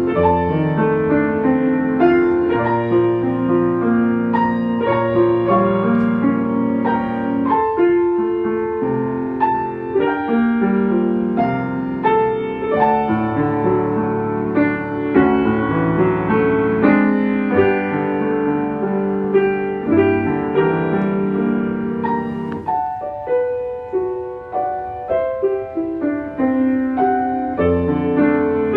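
Piano music: a slow piece of chords and melody, each note struck and left to ring.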